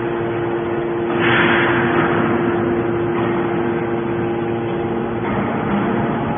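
Hydraulic scrap metal baler running: a steady hum from its motor and hydraulic pump, with a hiss that swells about a second in and then settles.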